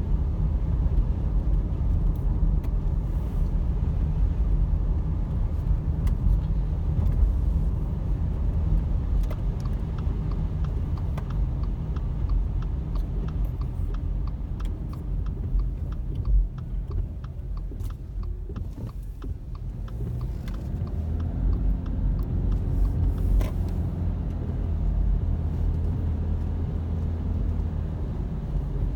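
Car driving on a wet road, heard from inside the cabin: a steady low rumble of engine and tyres. It eases off a little past the middle as the car slows, then builds again as it pulls away.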